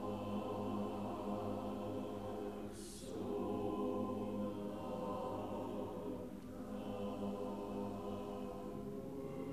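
Mixed church choir singing held, sustained chords, with short breaks between phrases about three and six and a half seconds in and a brief hiss of a sung consonant at the first break.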